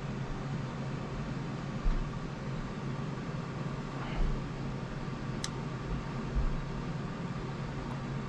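Steady low room hum, with a few small clicks and bumps from handling small servo-mounting parts; one sharp click comes about five seconds in.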